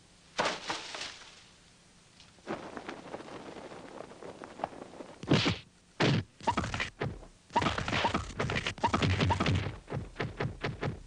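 Kung fu film fight sound effects: a string of punch and slap hits, with one loud blow about five seconds in and a rapid flurry of blows in the last few seconds.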